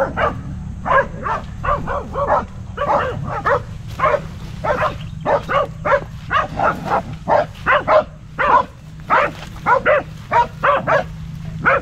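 Dogs barking in a rapid, unbroken series, about two or three barks a second, at something hidden in the tall grass.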